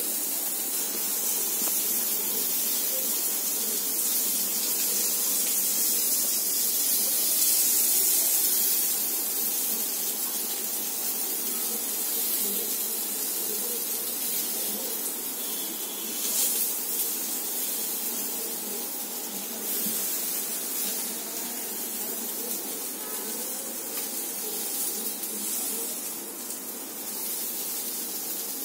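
Paneer tikka skewers sizzling steadily on a hot griddle over a gas flame, with an occasional light knock as the skewers are turned.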